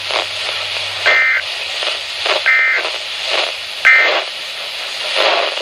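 Three short bursts of EAS SAME digital data tones, about 1.4 s apart: the end-of-message code that closes a NOAA Weather Radio alert. Steady radio reception hiss runs underneath.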